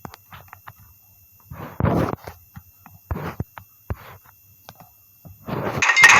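Irregular knocks, clicks and short rattling bursts with quiet gaps between.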